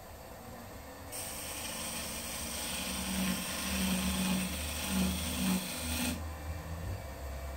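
Freshly sharpened turning gouge cutting spinning yew on a wood lathe: a steady hiss of shavings that starts about a second in and stops about six seconds in, over the lathe's low running hum.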